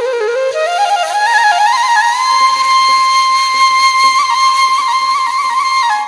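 Balochi flute music: a solo flute melody climbs in small ornamented steps for about two seconds, then holds one long high note with a slight wavering trill, breaking off near the end.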